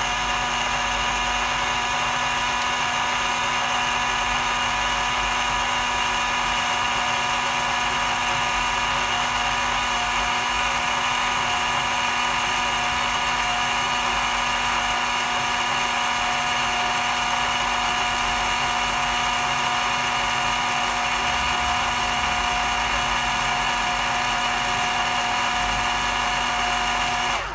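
Ninja Blast cordless portable blender running through one full blend cycle on a smoothie that is already smooth: a steady motor whine holding several tones at an even level, stopping suddenly near the end as the cycle finishes.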